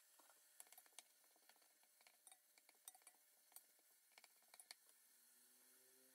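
Near silence: faint room tone with scattered faint clicks and ticks.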